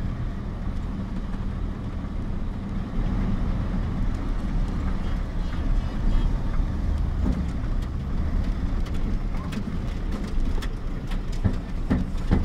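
Diesel engine of a Mercedes-Benz concrete mixer truck running steadily, with a few sharp knocks near the end.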